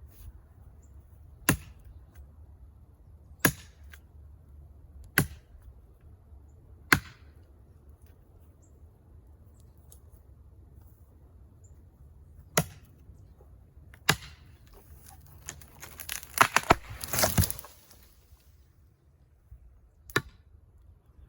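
Steel brush knife chopping the back cut of a small tree: single sharp blade strikes into the wood, spaced a couple of seconds apart. About sixteen seconds in comes a two-second cluster of rapid cracking and swishing as the tree gives way and falls, followed by one more strike.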